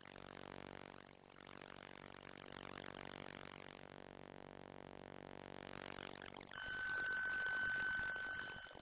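Electromagnetic interference from a 1984 Apple //c computer and its CRT monitor, picked up by an inductive coil pickup: a dense electrical buzz made of many evenly spaced overtones. About six and a half seconds in, with the coil held up by the monitor, it switches abruptly to a steady high whine over hiss.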